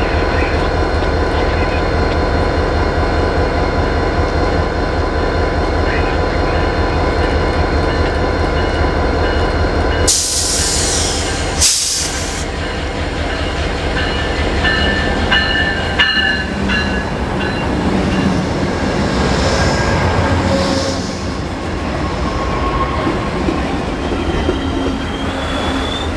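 GE Genesis P42DC diesel locomotive running as it brings an Amtrak passenger train slowly past, with a steady low engine rumble. A loud burst of hiss comes in two pulses about ten seconds in. In the second half, high squeals from the wheels on the rails come and go as the cars roll by.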